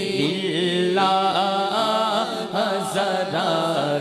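A man singing a naat into a microphone, drawing out a long wavering melismatic line with no clear words, his voice rising higher about a second in. A steady low drone is held underneath.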